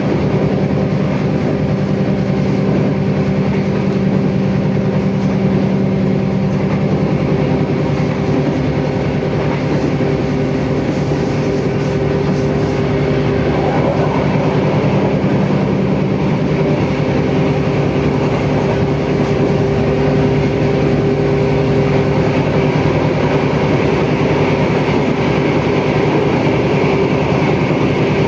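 KRD diesel railcar under way, heard from inside the carriage: the diesel engine drones steadily with a few held tones, over the noise of the wheels rolling on the track.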